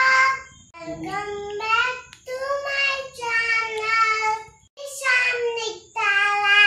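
A young girl singing unaccompanied, in phrases of a second or two with short breaks between them.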